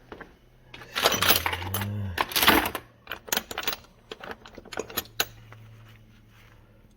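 Metal hand tools clinking and rattling as they are rummaged through: a louder clatter about a second in, then a run of sharp separate clinks.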